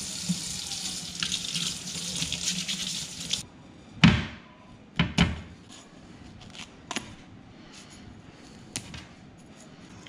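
Kitchen faucet running, water splashing over an armored catfish into a stainless steel sink; it stops abruptly a little over three seconds in. Then come three loud knocks close together and a few light clicks, from handling and cutting the fish with a knife on a wooden cutting board.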